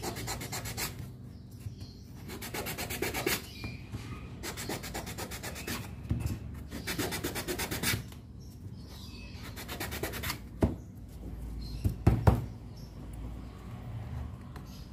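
Rubbing, in several runs of fast, evenly spaced strokes, with a few sharp knocks near the end.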